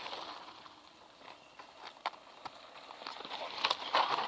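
Mountain bike tyres crunching over loose gravel and dirt, with scattered clicks and rattles from the bikes. It is loudest about four seconds in, as a rider passes close.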